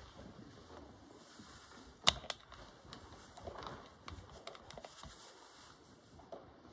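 A congregation getting to its feet: faint rustling and shuffling with scattered small knocks, and one sharp knock about two seconds in.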